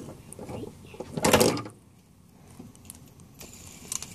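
Handling noise close to the microphone: clattering and rubbing, with one loud scraping burst about a second in and a few light ticks near the end.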